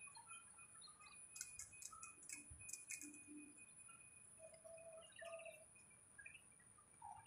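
Near silence, with a faint steady high whine, a few faint short chirps and a cluster of light clicks between about one and three seconds in.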